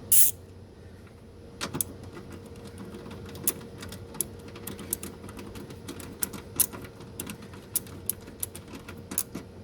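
Irregular light clicks and taps, a few a second, of hands and tools working plastic clips and wiring while the HID headlight ballast is freed from its mount. A louder rustle or scrape comes just after the start.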